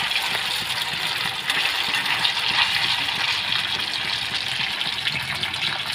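Soya chaap pieces frying in hot mustard oil in a kadai: the oil sizzles and crackles steadily.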